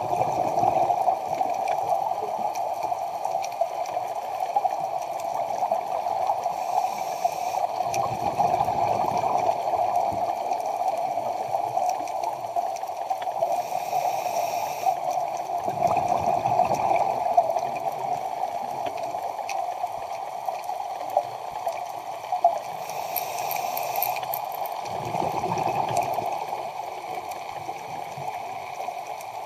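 Scuba diver breathing through a regulator, heard underwater over a steady rushing background: a hiss on each inhalation followed about a second later by a low bubbling rush of exhaled air, repeating roughly every eight seconds.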